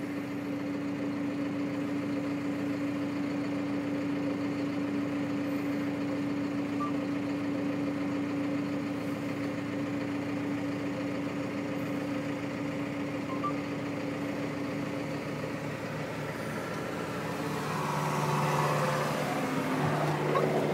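Snowplough vehicle's engine running steadily under load while ploughing snow, heard from its cab. About three-quarters of the way through a second, lower engine note comes in and the sound grows louder as the green tractor comes close.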